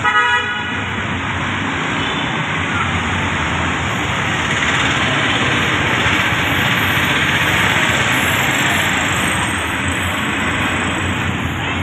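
Steady street traffic noise, motor vehicles running on the road close by, slightly louder midway.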